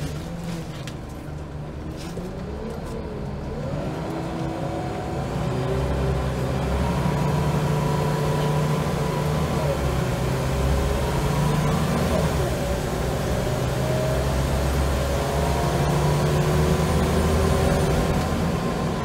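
Scania L94UB bus's diesel engine heard from inside the saloon, working hard as the bus accelerates, its pitch climbing and falling back several times as the ZF automatic gearbox changes up.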